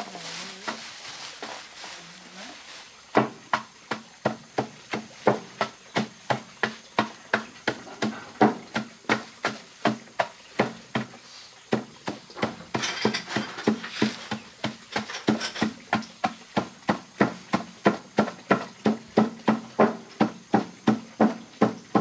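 Steady rhythmic strikes of a hand tool, chopping or hitting at about three a second, starting about three seconds in with a short break midway.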